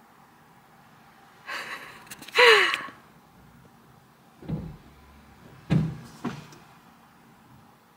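A short rustle, then a brief loud sound that falls in pitch, followed by three dull thumps on the car body heard from inside the cabin.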